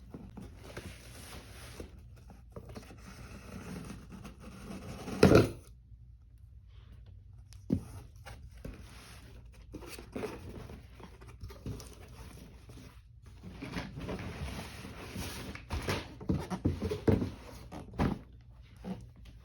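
Handling of a cardboard kit box and its packaging: rustling with scattered knocks and clicks, and one loud thump about five seconds in.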